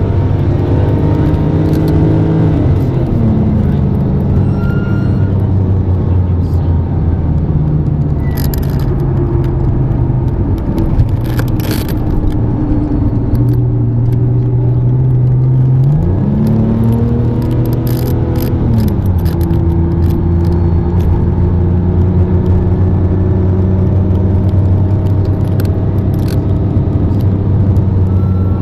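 Sports-car engine heard from inside the cabin at speed on a track. Its note falls about three seconds in as the car slows for a bend. Later it rises steeply under hard acceleration, then drops back at an upshift and carries on steadily.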